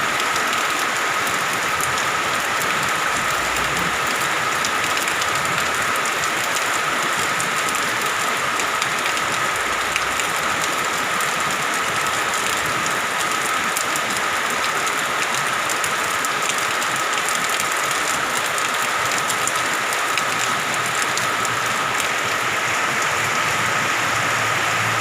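Steady downpour of rain: a dense, even hiss with many fine drop ticks.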